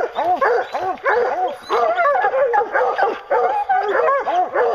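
Pack of English hounds barking treed, a nonstop run of short overlapping barks, about three a second, each rising and falling in pitch. The dogs are bayed at the foot of a tree, the sign that they have put the bear up it.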